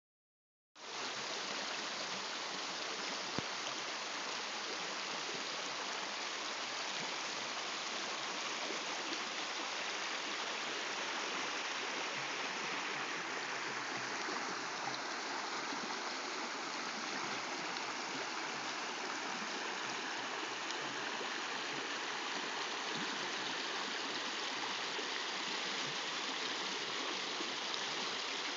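Small creek rushing over rocks, a steady hiss of running water that starts about a second in. A single brief click comes a few seconds in.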